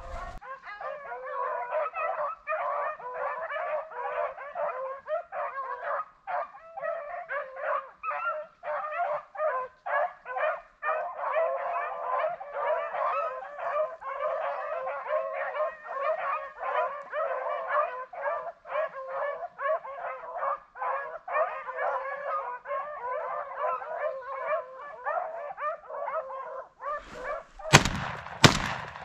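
A pack of rabbit hounds in full cry on a running rabbit: many dogs baying over one another without a break. Near the end comes a loud, sharp bang, a shotgun shot at the rabbit.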